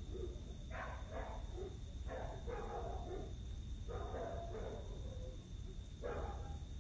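A dog barking in several short bouts, over a steady low hum and a faint high steady tone.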